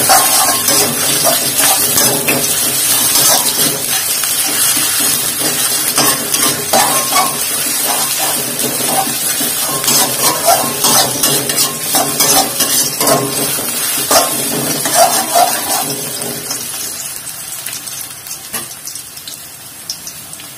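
Sliced onion and garlic sizzling in oil in a wok, with a metal spatula scraping and knocking against the pan as they are stirred. The sizzle and stirring die down over the last few seconds.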